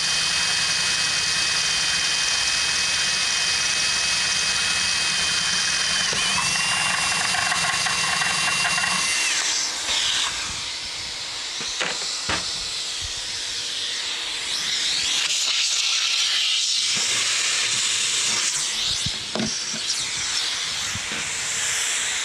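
Cordless drill boring through the wooden end of an acoustic guitar, its motor whine shifting pitch about six seconds in and stopping about nine seconds in. Under it is the steady hiss of a vacuum hose sucking up the wood chips, which runs on alone after the drill stops, with a few knocks.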